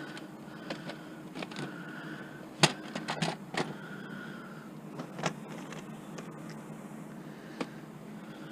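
Plastic videotape cassettes knocking and clacking against each other as they are handled and sorted, a few separate sharp clacks with short pauses between.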